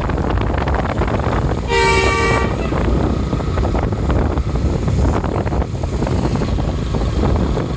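A bus air horn sounds one short blast, under a second long, about two seconds in. Constant loud wind and road rumble on the microphone runs underneath.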